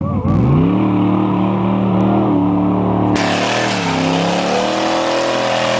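Jeep CJ engine revving hard under load while climbing a steep dirt hill, its pitch rising at the start and then wavering as it bogs and picks up. About three seconds in, a rushing hiss joins as the spinning tyres throw dirt close by.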